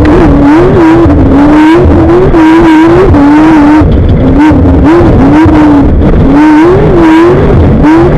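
Off-road race vehicle's engine running hard at a fast lap pace, its pitch swinging up and down about once a second as the revs rise and fall, over a heavy layer of low rumbling noise. Very loud throughout.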